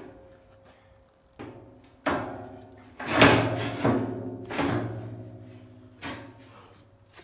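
Steel pieces clanking against the inside of a 1000-gallon steel smoker tank: about half a dozen knocks, each ringing on in the hollow tank as it fades. The loudest come around the middle.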